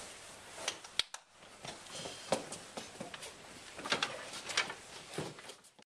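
Scattered short knocks, taps and rustles as children move about and handle a wooden play house and its door in a small room, with no clear speech. The sound cuts off suddenly near the end.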